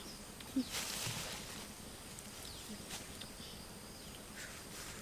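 Outdoor ambience: a brief rustling noise about a second in, with short chirps and faint high steady tones of birds and insects.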